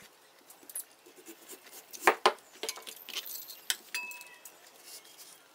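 Small clinks and knocks of a kitchen knife, a vegetable peeler and a small ceramic bowl being handled, with two sharper knocks close together about two seconds in.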